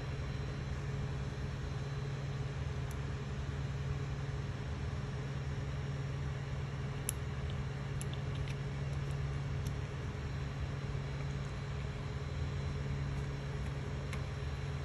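Creality Ender 3 3D printer's fans humming steadily, with a few light clicks about halfway through as fingers handle the extruder.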